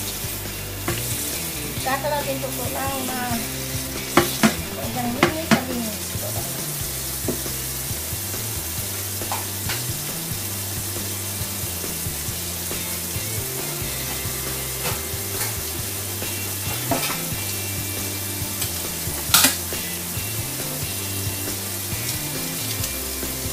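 Crackling rustle of fresh oregano leaves being stripped from their stems by hand, with a few sharp clicks, over soft background music whose low notes change every second or two.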